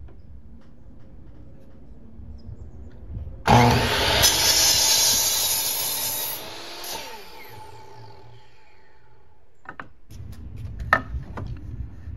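Kobalt miter saw cutting a 2x4 to length: the motor starts suddenly about three and a half seconds in, runs through the wood for about three seconds, then winds down with falling pitch. A few knocks near the end.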